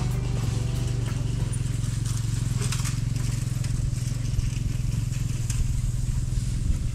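An engine running steadily at an even, low pitch, with a few faint crackles over it.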